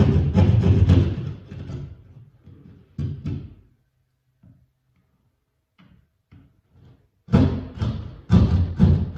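Drywall being cut out by hand for an electrical box: bursts of rough sawing strokes that stop for a few seconds midway, then start again.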